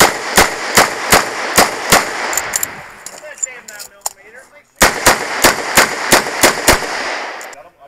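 Smith & Wesson 929 9mm revolver fired rapidly in two strings of about six or seven shots each, roughly three shots a second, with a pause of nearly three seconds between the strings.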